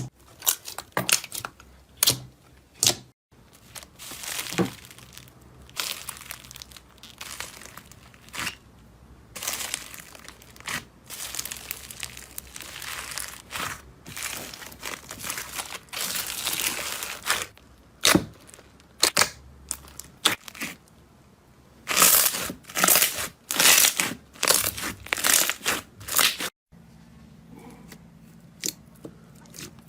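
Slime being squeezed, stretched and pressed by hand, giving irregular wet crackles and sharp popping clicks in clusters. It goes quieter near the end.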